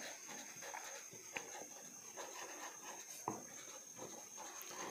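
Felt-tip marker writing on paper: faint, irregular scratching strokes, with a couple of light taps of the pen tip.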